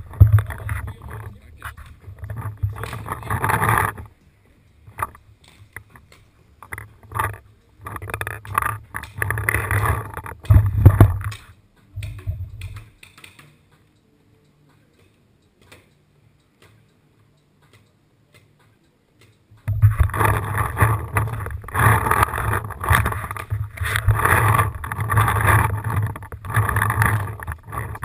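Rumbling, rustling handling noise and wind on the microphone of a worn action camera as its wearer moves, coming in uneven surges. The sound drops to near silence for several seconds in the middle, then comes back for a long stretch.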